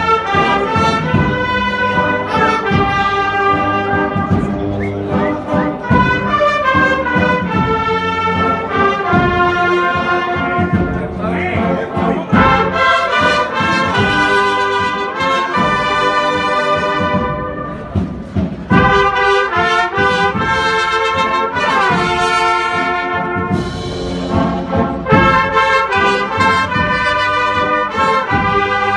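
Marching brass band playing a processional march, with trumpets carrying the melody in held, stepwise notes. There is a brief break in the playing a little past halfway.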